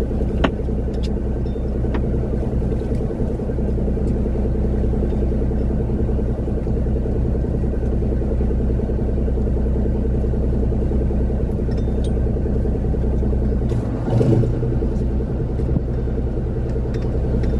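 Engine running at a steady drone, with a few faint clicks and a brief louder bump about fourteen seconds in.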